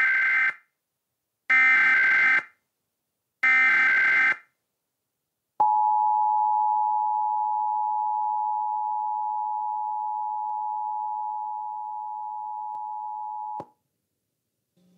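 Emergency Alert System signal: three short bursts of warbling SAME header data tones about a second apart, followed by the steady two-tone EAS attention signal (853 and 960 Hz) held for about eight seconds. The attention tone grows gradually quieter and cuts off suddenly.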